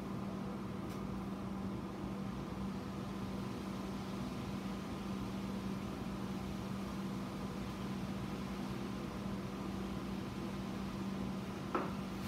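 Steady machine hum with a constant low tone over a light hiss, and one short click near the end.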